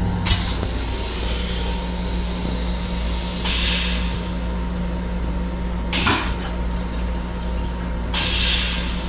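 Steady hum of an M7 electric railcar heard in its restroom, with a click just after the start and three short bursts of hissing air about three and a half, six and eight seconds in.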